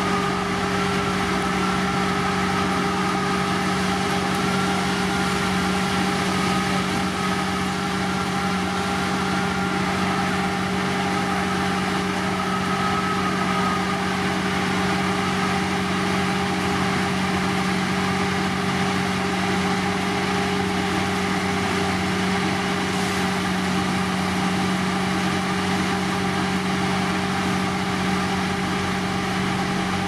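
Heavy road-construction machinery engine running steadily with a constant hum, and a higher whine above it that wavers and fades away about halfway through.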